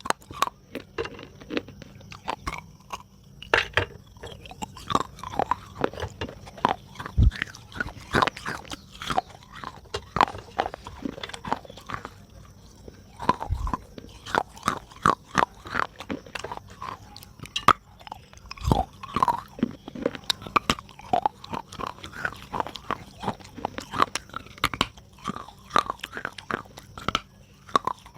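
A person biting and chewing pieces of soft clay pot close to the microphone: a steady run of wet crunches and crackles, with a few low thuds.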